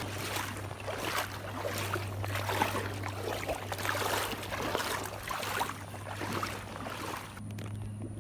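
Wading through floodwater: repeated sloshing strides, about one a second, thinning out near the end, over a steady low hum.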